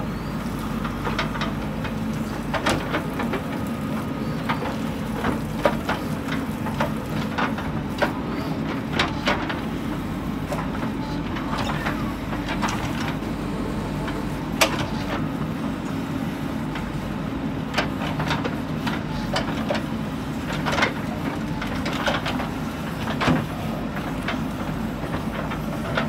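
JCB 3DX backhoe loader's diesel engine running steadily under load as the backhoe digs, with frequent sharp clanks and knocks scattered through it.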